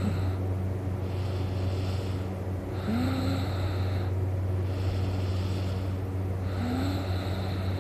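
A sleeping man snoring. Three rasping snoring in-breaths come about every 3.7 seconds, each opening with a short rising snort, and breathy out-breaths fall between them. A steady low hum runs underneath.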